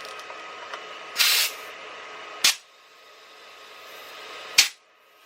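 Compressed air hissing into a motorcycle tire through an air inflator as it is over-inflated toward 75–80 psi to force a bead that won't seat onto the rim. There is a short, louder spurt of hiss about a second in, and sharp clicks about halfway through and near the end.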